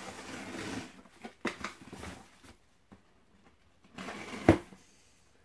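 Cardboard shipping box being opened by hand: cardboard and packing rustling and scraping, with a few small clicks, and one sharp knock about four and a half seconds in.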